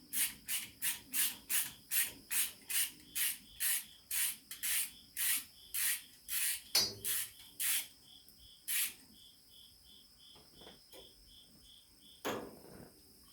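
Rhythmic rasping strokes of a hand tool worked on metal, about two or three strokes a second, stopping about eight seconds in, with one more near the end. A cricket chirps steadily behind.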